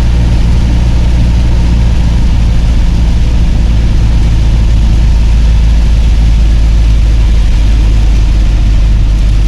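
A vehicle engine running steadily at cruising speed with a deep, even drone, over a constant hiss of tyres on a rain-soaked road.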